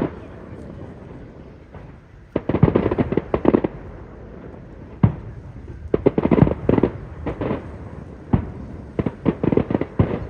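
Fireworks display: sharp single bangs and quick runs of crackling reports, coming in several volleys with short lulls between them.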